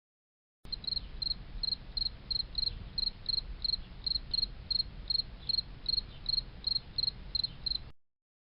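A cricket chirping in a steady rhythm, about three short high-pitched chirps a second, starting and stopping abruptly.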